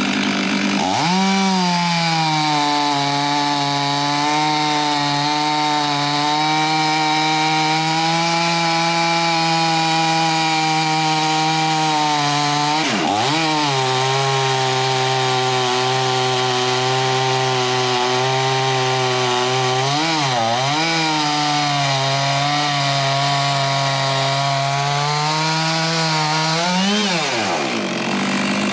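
Chainsaw revved up about a second in and held at high revs through one long cut into wood, its engine note dipping briefly twice mid-cut before revving down near the end.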